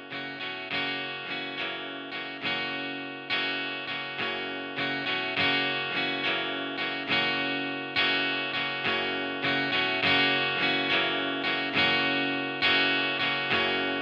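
Instrumental music of plucked string notes, each struck and left to ring and fade, a few a second, building gradually louder.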